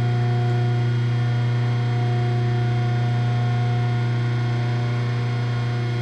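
Hydraulic shop press running with a steady hum while its ram pushes a rubber torque-rod bushing down into a steel reducing cartridge.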